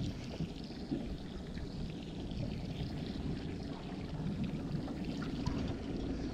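Water sloshing and trickling against a small boat's hull, over a steady low rumble.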